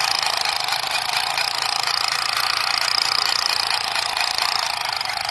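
Battery-operated toy M16 rifle firing with the trigger held: a continuous fast mechanical rattle, steady and high-pitched with no deep sound.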